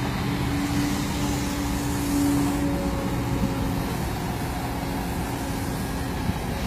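Kobelco hydraulic excavator running steadily under load as its arm lowers and the bucket digs into sand, with a held tone over the engine for the first four seconds or so.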